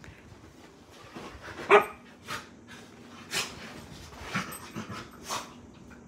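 Samoyed puppy barking once a little under two seconds in, then making several shorter, softer vocal noises a second or so apart as it plays.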